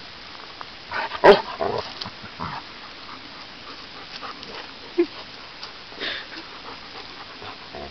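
Bernese mountain dogs play-growling and grunting as they play-fight, with a short burst of growls about a second in and a single short grunt at about five seconds.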